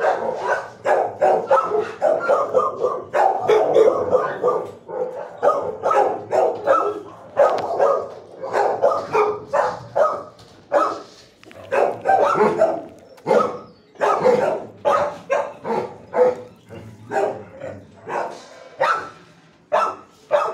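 Shelter dogs barking over one another in the kennels, several barks a second without let-up.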